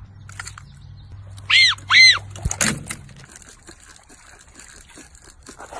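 Two short whistle-like chirps, each rising and falling in pitch, about a second and a half in, then a low thump. After that comes a long run of quick small clicks from a spinning fishing reel being wound in.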